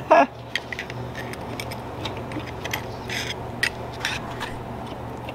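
Irregular metallic clicks, ticks and scrapes of a 4L60E transmission front oil pump being turned and handled by hand while it is checked for damage, over a steady low hum.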